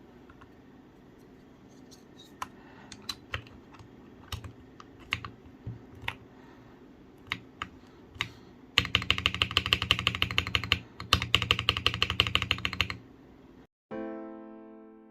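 Akko MOD007 gasket-mount mechanical keyboard with MMD Ice Cream full-POM switches being typed on: scattered single keystrokes for about nine seconds, then a fast, dense run of typing for about four seconds. Piano music comes in near the end.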